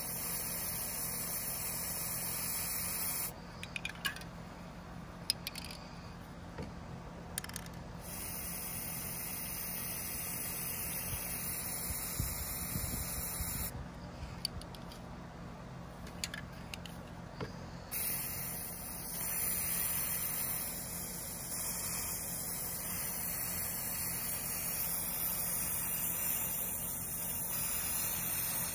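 Aerosol spray paint cans hissing as paint is sprayed onto the surface of water in a bucket, in three long bursts with pauses of four to five seconds between them. Small clicks and knocks sound in the pauses.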